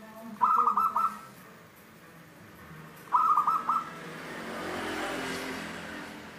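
Zebra dove (perkutut) cooing twice, each call a quick staccato phrase of about four clear notes, about three seconds apart. A rush of background noise swells and fades after the second call.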